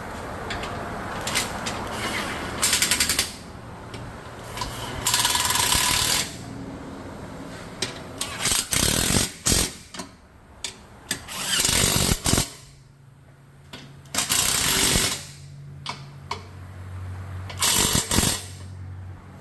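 Impact wrench running in six short bursts of about a second each, a few seconds apart, with clicks between them: bolts being run in or out on the Bronco's front end during the intercooler job.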